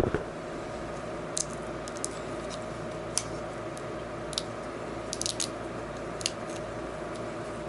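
Scattered small clicks and taps as fingers handle a display ribbon-cable connector against the back of a thin laptop LCD panel, over a steady low hum.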